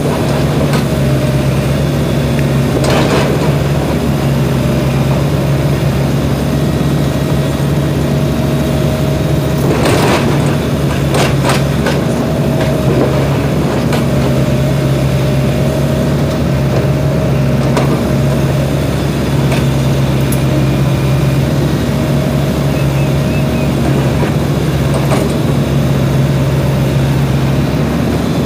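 SANY mini excavator's diesel engine running steadily as the machine works, with a few sharp knocks about three seconds in and again around ten to twelve seconds.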